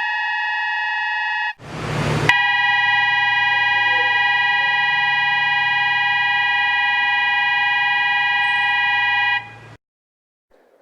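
Electronic train departure bell on a railway platform, ringing as one unbroken, steady electronic tone. It is briefly interrupted by a short rush of noise about two seconds in, then rings on and stops about nine and a half seconds in.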